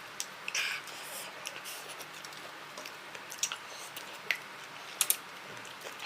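Person eating spicy instant noodles: scattered short mouth clicks, chewing and brief slurps, with a more noticeable slurp about half a second in and a couple of sharper clicks around five seconds in.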